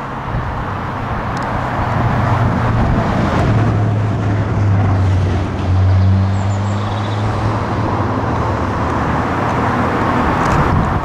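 Steam-hauled passenger train pulling away, a continuous rush of the train and the steam engine working, with a steady low hum from the diesel locomotive coupled at the rear. The hum grows louder around the middle.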